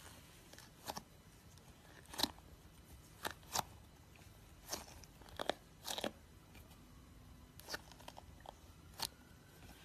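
Pink brain-shaped squishy stress ball squeezed in the hands, giving a dozen or so sharp crackles and clicks at irregular intervals.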